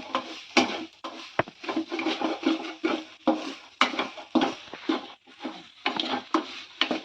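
Thick ground soya masala mixture being stirred and scraped around a frying pan during sautéing, in repeated irregular scraping strokes over a light sizzle of oil.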